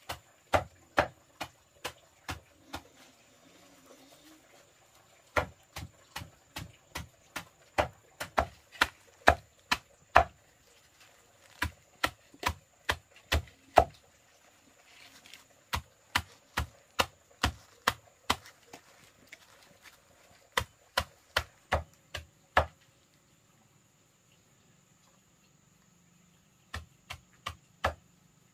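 Chopping with a blade on a wooden block or board: steady strokes about two to three a second, in runs broken by short pauses, stopping for a few seconds near the end.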